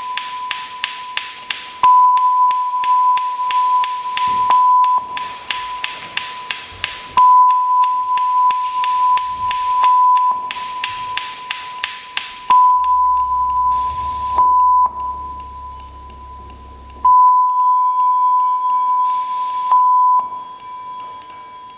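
Electronic soundtrack: a steady high beeping tone over rapid ticking clicks, about four a second, that drops to a low hum in the middle before the tone comes back with sparser clicks.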